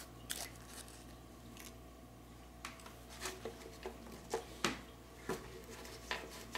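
Light rustles and clicks of hands handling a torn foil alcohol prep pad packet and small test supplies, a few near the start, a pause, then a run of soft clicks from about two and a half seconds in, over a faint low hum.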